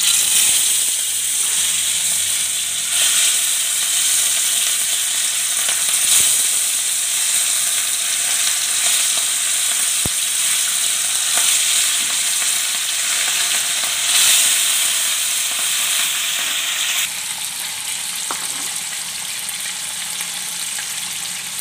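Pieces of katla fish sizzling loudly as they fry in hot mustard oil in a wok. The sizzle bursts in as the first piece goes into the oil, swells as more pieces are added, and eases slightly near the end.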